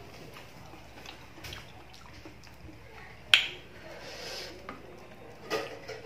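A metal spoon clinking and scraping in a ceramic bowl of rice and chopped chillies while eating, with a few small clicks and one sharp clink about halfway through.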